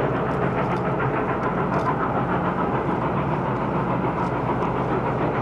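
Norfolk & Western 611, a J-class 4-8-4 steam locomotive, working upgrade with a steady exhaust.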